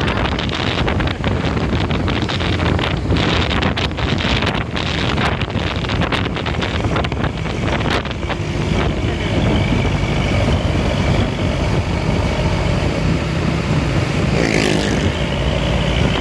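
Intercity bus on the move: steady engine and road noise, with wind buffeting the microphone through the first half. About halfway through the buffeting eases, steady tones come in over the engine, and a brief rising sweep follows near the end.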